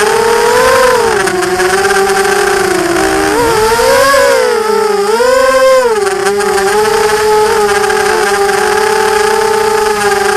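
Quadcopter's four EMAX MT2204 2300KV brushless motors spinning 5040 propellers, heard from a camera on the craft: a loud buzzing whine whose pitch rises and falls with the throttle in the first six seconds, then holds steady.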